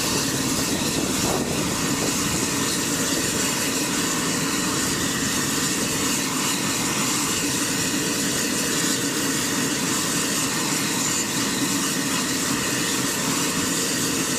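UH-60 Black Hawk helicopter running on the ground, its twin turboshaft engines giving a steady turbine whine and rush while the main rotor turns.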